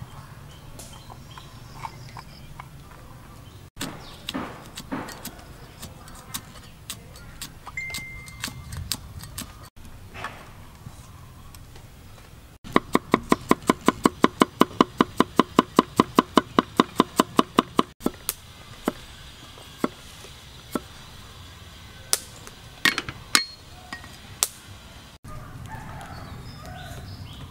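Heavy cleaver chopping on a wooden chopping board: scattered single cuts, then a fast, even run of chops, about six a second for around five seconds, mincing garlic.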